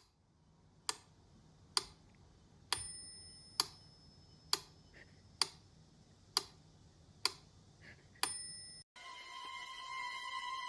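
Sharp ticks about once a second, nine in all, two of them with a short ringing tone; they cut off near the end, and sustained electronic music tones start.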